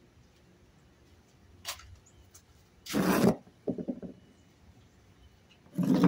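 Hands handling a metal can and a jar lid on a wooden tabletop: a light click, then a loud scrape about three seconds in followed by a short rattle, and another scrape near the end.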